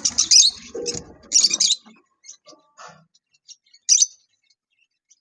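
Lovebirds chirping: short, sharp, high-pitched chirps, several in quick succession in the first two seconds and one more about four seconds in.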